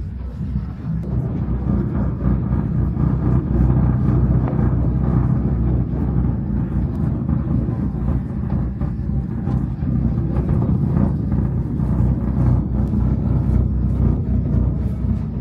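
Steady low rumble of the Salève cable car cabin travelling along its cable, with light clicks and rattles scattered through it.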